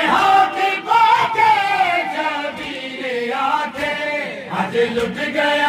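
Men chanting a nauha, a Shia mourning lament, together into a microphone. The melodic lines rise and fall continuously.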